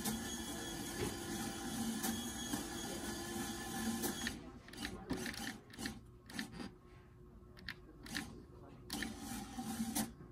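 Plastic Coaster Dynamix model roller coaster running: its small electric lift motor whirs steadily for about the first four seconds as it hauls the car up the lift hill. After that it is quieter, with scattered clicks and rattles as the car coasts over the plastic track.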